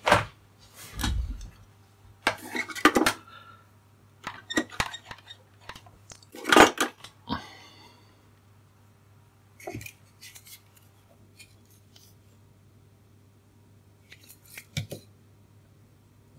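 Small metal screws, nuts and hand tools clinking and tapping as they are handled and set down, in scattered short clicks with the loudest knock about six and a half seconds in.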